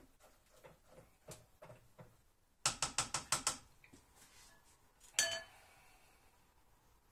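Spatula stirring mushrooms and thyme in the stainless-steel mixing bowl of a Monsieur Cuisine Connect, with soft scrapes at first. About three seconds in come a quick run of about six sharp taps of the spatula against the bowl, then a single clank with a short ring about two seconds later.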